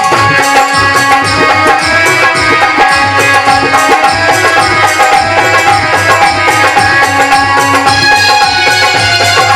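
Instrumental interlude of Aalha-style folk music: a hand drum keeps a steady, even beat under held melodic tones.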